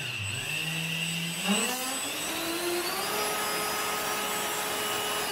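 Dynam 70 mm 12-blade electric ducted fan, driven by its 2600 kV brushless motor on a 3S battery, running under a static thrust test with a steady pitched hum and a high whine. About a second and a half in, its pitch climbs as the throttle is raised, then holds at the higher speed.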